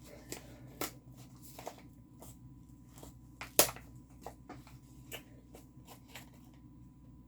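Hands handling and rustling packaging while unpacking a diamond painting kit: scattered soft crinkles and clicks, with one sharper click about three and a half seconds in, over a faint low hum.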